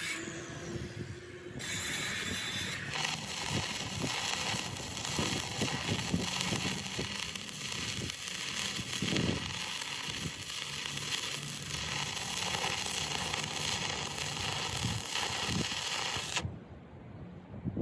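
Electric welding arc crackling and hissing steadily while a weld is laid, cutting off suddenly near the end.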